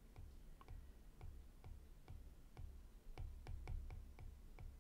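Faint, unevenly spaced clicks and taps, several a second, of a stylus on a pen tablet as words are handwritten.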